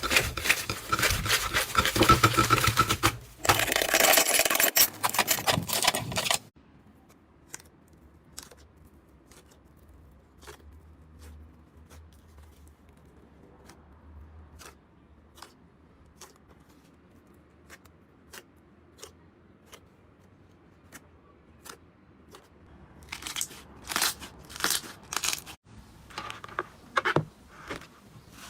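Slime being handled: dense crackling and crunching for the first several seconds, then quiet with sparse small clicks and pops, and a run of louder clicks and pops near the end.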